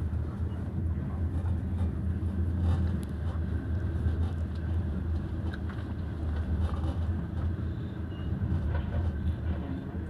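A passenger train running steadily, heard from inside the carriage as a constant low rumble.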